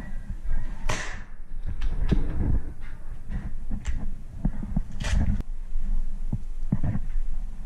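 Paintball markers firing in sharp pops, with two loud ones about a second in and about five seconds in and fainter ones between, over footsteps and gear rattling close to the microphone.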